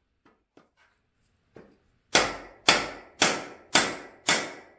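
Hammer striking the end of a cam bearing installer shaft, driving a new cam bearing into the bore of an LS V8 engine block. A few faint taps, then from about two seconds in five sharp, evenly spaced strikes, about two a second.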